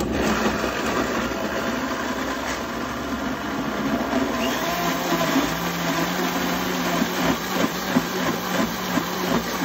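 Countertop blender switching on suddenly and running steadily at speed, puréeing tomatillos, onion, serrano peppers and cilantro into a salsa. A lower steady hum joins the motor noise about halfway through.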